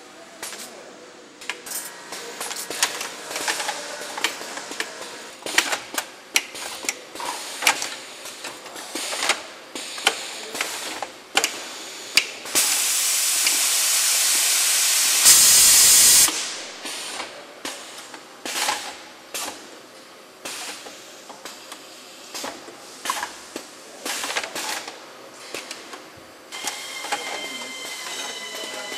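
Dedicated tube-bending machine cycling: quick, irregular clacks and clicks of pneumatic cylinders and clamps as small-diameter tube is fed and bent. About halfway through there is a loud hiss of air lasting about three and a half seconds.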